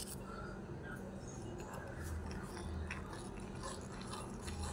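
Faint gritty scraping of a small metal spoon scooping granulated sugar from a steel cup and stirring it into milk in a miniature clay pot, with a few light clicks.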